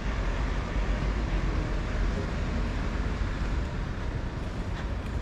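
Steady outdoor city background noise dominated by a low rumble, without clear voices.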